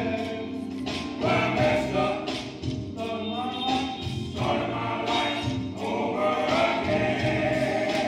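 Male gospel chorus singing, phrases of held notes sung together by many voices.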